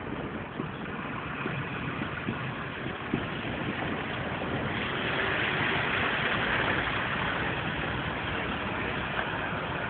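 A steady engine rumble under a hiss that grows stronger about five seconds in, with a few faint ticks.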